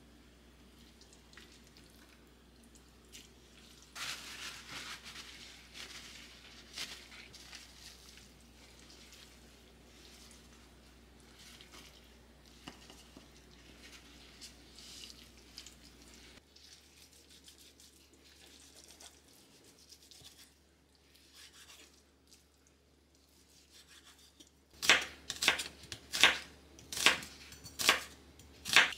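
Kitchen food-prep sounds: soft rubbing and handling noises, with a stretch of scraping early on, then near the end a steady run of sharp knocks, about one and a half a second.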